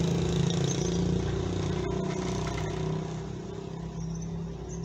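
A road vehicle's engine running steadily on the street, easing off about three seconds in, over general outdoor noise.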